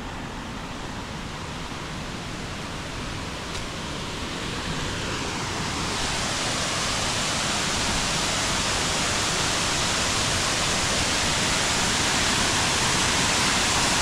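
Waterfall: a steady rush of falling water that grows gradually louder and brighter from about five seconds in.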